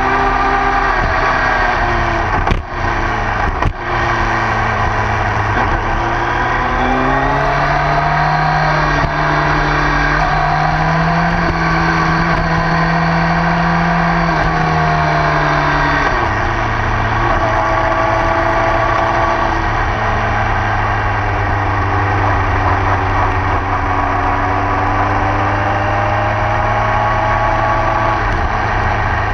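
Motorcycle engine running hard at speed on a race track. The sound dips briefly twice, about two and a half and four seconds in. The note rises slowly through the middle, drops sharply about sixteen seconds in, then holds steady.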